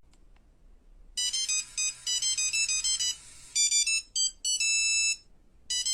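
A phone ringtone: a bright, high-pitched melody of quick short notes, starting about a second in and repeating, with a few brief breaks.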